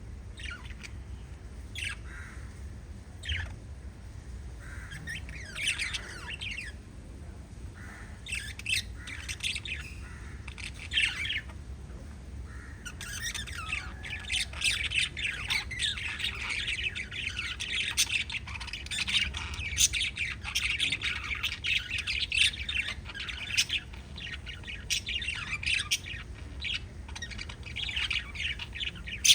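Pet lovebirds chirping and squawking: scattered short calls at first, then, about halfway through, a dense, continuous chatter that carries on.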